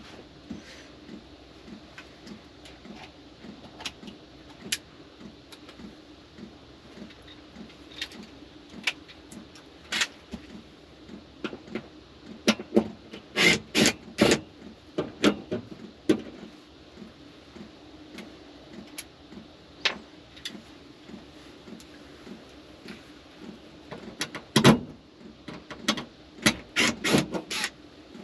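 Scattered clicks and knocks of household items being handled and taken down from a wood-panelled wall, loudest in two clusters, one midway and one near the end. Underneath runs a steady low hum that pulses about three times a second.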